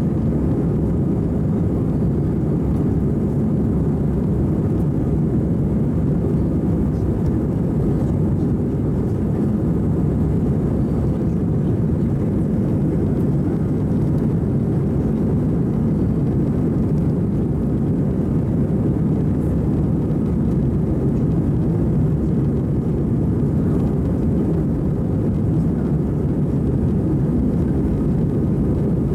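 Steady cabin noise of a jet airliner climbing after takeoff: an even low rumble of engines and airflow that holds without change.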